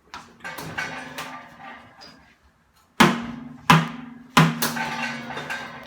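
Hammer blows on the steel shell of an old water heater tank, each strike leaving the tank ringing. A couple of lighter hits come first, then three hard strikes come about two-thirds of a second apart in the second half.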